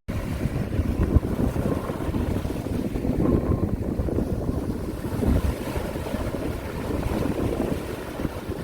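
Strong wind gusting and buffeting the microphone over the wash of sea waves.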